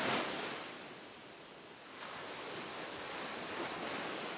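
A soft rushing noise that swells at the start, eases off, and picks up again about two seconds in.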